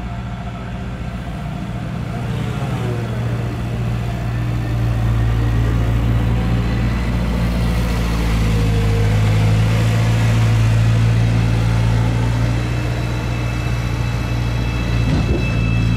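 Heavy diesel engine running with a steady low hum, growing louder over the first few seconds and then holding.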